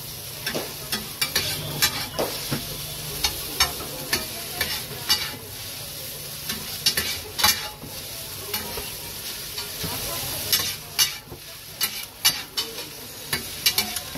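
Two metal spatulas clacking and scraping on a large flat griddle as egg chow mein noodles are tossed and stir-fried, with irregular sharp strikes over a steady sizzle.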